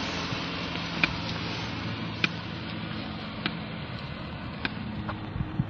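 Steady hiss and low hum of an outdoor tape recording made on a walk, with a sharp click about every second and a quarter, four times in a row.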